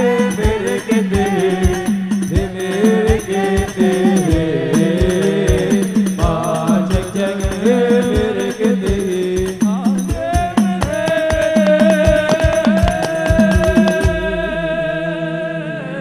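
Live devotional song: a voice sings the melody over a steady drum beat and instrumental backing. Near the end the singer holds one long note, and the drums stop about two seconds before the end, leaving a low sustained tone.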